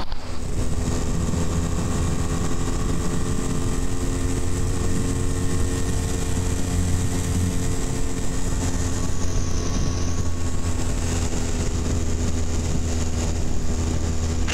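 BMW F800R's parallel-twin engine running at a steady cruising speed, its note holding nearly level throughout, with road and wind noise underneath.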